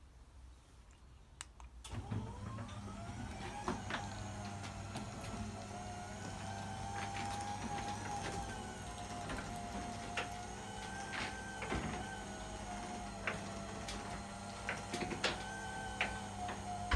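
Electric garage door opener starting about two seconds in, its motor whine rising briefly and then running steady over a low hum, with scattered clicks and rattles as the sectional door rolls down.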